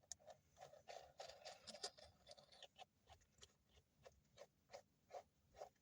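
Faint small clicks and ticks, irregular at first and then about two or three a second, from small parts being handled close up.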